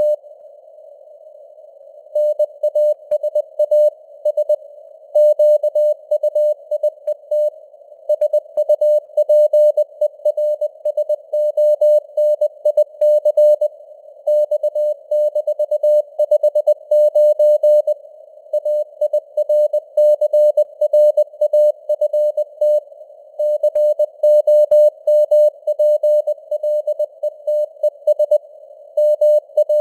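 Morse code sent at 20 words per minute: a steady mid-pitched beep keyed on and off in quick dots and dashes, heard through a narrow band of simulated radio hiss. Sending pauses for about two seconds at the start, then runs on without a break.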